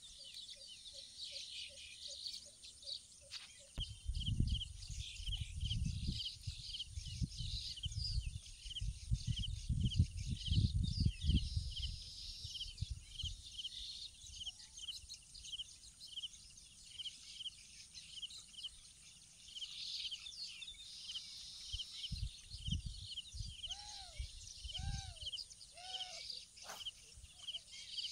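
Outdoor ambience of insects chirping steadily, with a regular pulse about twice a second, and low rumbling noise on the microphone in bursts during the first half. Near the end a bird gives three short calls.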